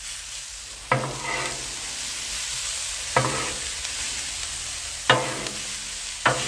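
Metal spatula scraping and clanking on the steel cooktop of a Blackstone griddle as frozen shredded hash browns are spread out: four sharp strikes, each with a brief metallic ring, over a steady sizzle of food frying.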